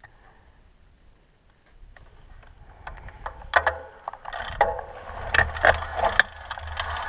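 Mountain bike starting to roll on a rocky dirt trail: near-quiet for the first two seconds, then tyre noise on gravel building up, with sharp knocks and rattles from the bike as it goes over rocks.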